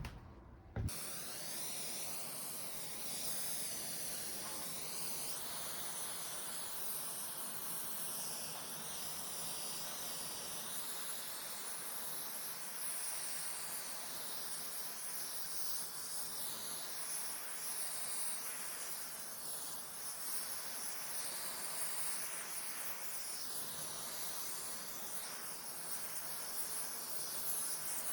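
A steady hiss, as of air or spray rushing from a tool, starting sharply with a click about a second in and then running on evenly.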